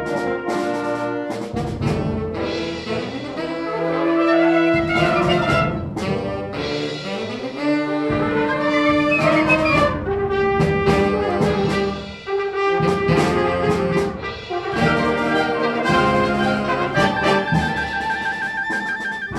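Concert band playing, with brass to the fore: trumpets and trombones over saxophones, with sharp accented strokes.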